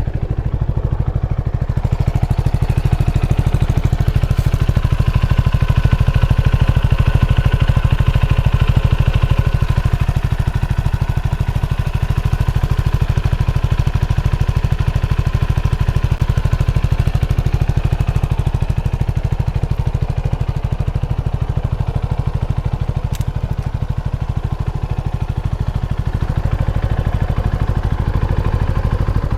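CF Moto NK300 motorcycle engine idling steadily in neutral, just after being started, with its exhaust note running evenly.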